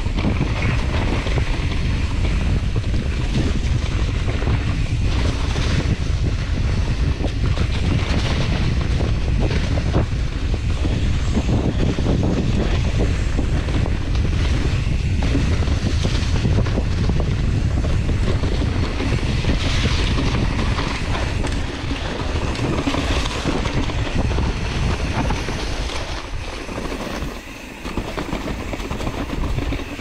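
Steady wind rush on the microphone of a mountain bike riding down a dry-leaf-covered dirt trail, with the tyres rolling over the leaves. The noise eases briefly near the end.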